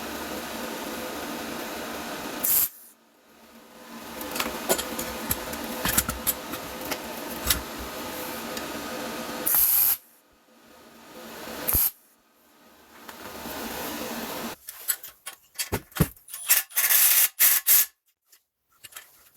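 MIG welder arc hissing and crackling in runs of several seconds, welding a fresh bolt onto a rusted, seized bolt head. Near the end it breaks into a string of short bursts.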